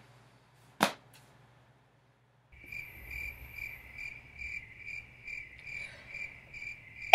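A single click about a second in, then, starting about two and a half seconds in, a faint high-pitched chirping that pulses evenly about twice a second.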